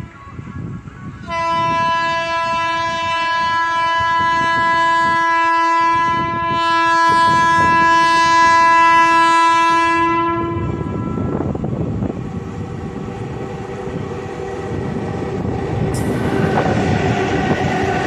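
Approaching WAG-12 electric locomotive sounding one long, steady horn blast of about nine seconds. As the horn stops, the rumble and clatter of the goods train's wheels on the rails grows louder as the locomotive draws alongside.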